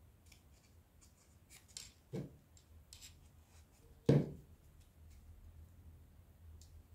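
Quiet hand-handling of EVA foam craft pieces: faint rubbing and small clicks, with two soft knocks about two and four seconds in.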